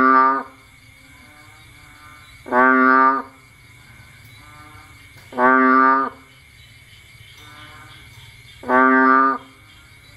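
Bullfrog calling: a loud, deep call about two-thirds of a second long, given four times about every three seconds, with fainter calls between them over a steady high chorus of night insects or frogs.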